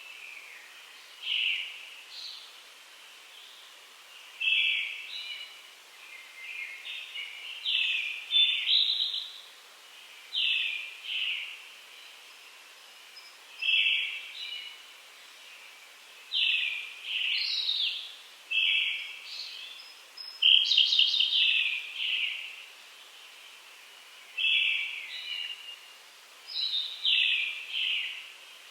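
Wild songbirds singing, among them brown-headed thrushes and Japanese robins: short, high song phrases every second or two, with a louder rapid rattling phrase about two-thirds of the way through.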